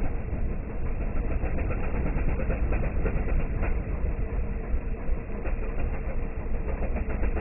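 ATV engine running under load, its power rising and falling unevenly as the quad churns through mud and icy water.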